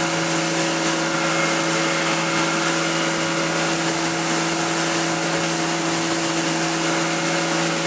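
Boat motor running at a steady speed, its engine note holding constant over a rushing noise.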